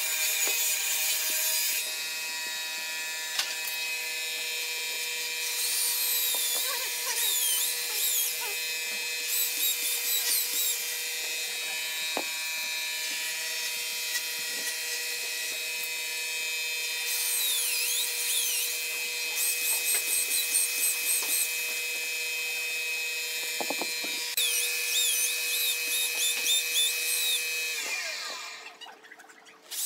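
A machine motor runs with a steady whine, with bursts of high squeaky chirps over it, and it cuts off about two seconds before the end.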